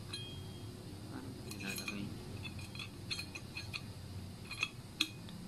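Metal lid of a stainless steel tumbler handled by hand: scattered small clicks and clinks, a few with a brief ring.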